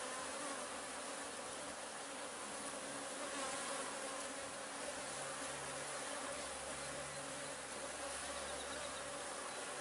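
Honeybees buzzing at a busy hive entrance: many bees flying in and out in a steady, unbroken hum, with a lower hum joining about halfway through. The heavy flight traffic is the sign of a strong, active colony foraging.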